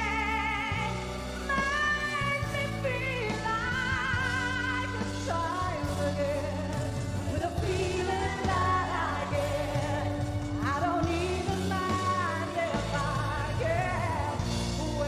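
Female singer singing a pop ballad live into a microphone over band accompaniment with a steady bass, holding long notes with a wide vibrato.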